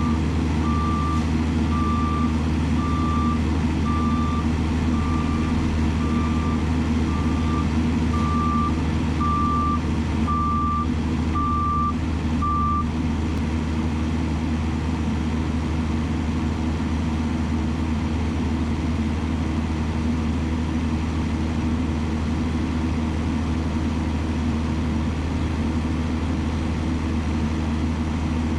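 A heavy construction vehicle's diesel engine runs steadily while its reversing alarm beeps about once a second, stopping about 13 seconds in as the machine stops backing up.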